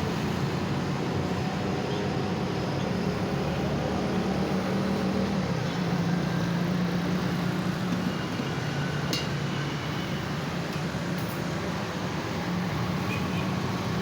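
Street traffic: the steady hum of vehicle engines running by the roadside, with a single sharp click about nine seconds in.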